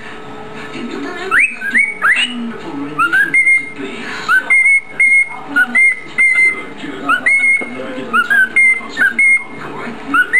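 Cockatiel whistling a run of short chirps and clipped whistled notes, many of them quick upward slides, about two a second.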